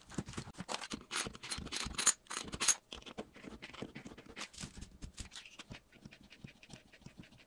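Small scratching and clicking of pliers working on a dishwasher's adjustable levelling feet. The clicks come thick and fast for about the first three seconds, then sparser.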